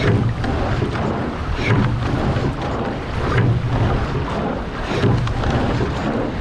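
Rowing shell moving fast through the water: a steady rush of water along the hull and wind buffeting the microphone, swelling about every second and a half to two seconds in time with the rowing strokes.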